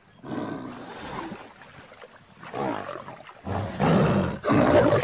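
Male lion snarling aggressively in three rough bursts, the last and loudest starting about three and a half seconds in.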